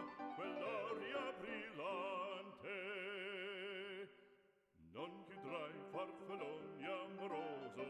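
Background music: an operatic voice singing with strong vibrato, holding one long note, breaking off briefly about four seconds in, then singing on.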